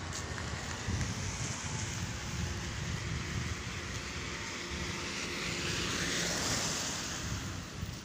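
A car driving past on a dirt road, its engine and tyre noise building to a peak about six seconds in and then falling away.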